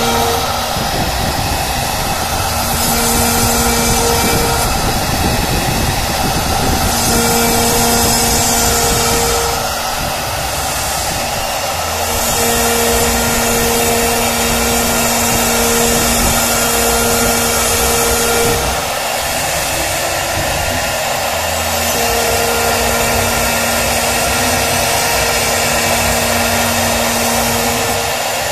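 CNC router's HSD electrospindle running at high speed while its bit carves grooves into a wood panel: a steady whine and hiss, with the high cutting noise swelling and easing as the head moves along the pattern. A low pitched hum cuts in and out every few seconds.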